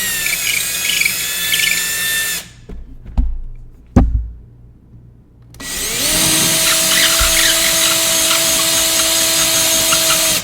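Power drill running with a steady whine, stopping about two and a half seconds in. Two sharp knocks follow, then the drill spins up again and runs steadily to the end.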